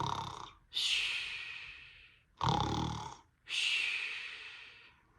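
A woman imitating snoring, twice: each time a short rasping snore, then a long breathy hiss that fades away.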